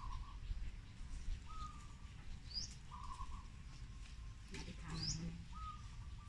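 Birds calling every few seconds: a short falling whistle, a buzzy note and a quick rising high chirp, repeating. Under them is faint rustling of coconut-leaf ribs being handled and tied, with a light clack about four and a half seconds in.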